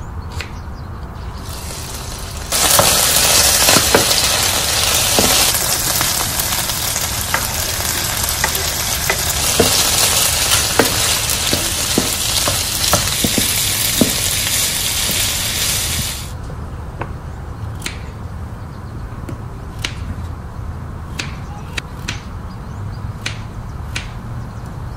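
Beef chunks and diced onion sizzling loudly in a hot frying pan, stirred with a wooden spatula that knocks now and then. The sizzling starts suddenly a couple of seconds in and cuts off about two-thirds through. Before it and after it, a knife taps on a wooden cutting board, cutting onion and then peeled potatoes.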